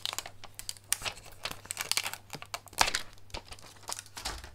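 Clear plastic stamp carrier sheet crinkling as a clear photopolymer wreath stamp is peeled off it and handled. The crackles are irregular, with a louder cluster about three seconds in.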